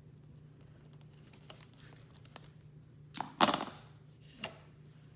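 Sharp knife cutting through clear plastic refrigerator water-line tubing on a piece of wood: a few faint ticks, then one loud crunch about three and a half seconds in as the blade goes through, followed by two lighter knocks.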